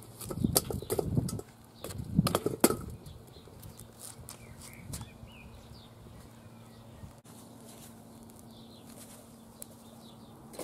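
Charcoal briquettes clattering and knocking against the smoker's steel charcoal bowl as they are pushed around with a wooden stick, a quick run of knocks in the first three seconds, then a few faint handling noises.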